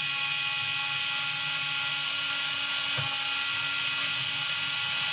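Cordless screwdriver running at a steady high whine as it drives a screw in.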